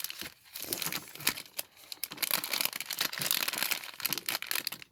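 Plastic packaging crinkling and crackling in quick, irregular handling noises as a small squishy toy is unwrapped.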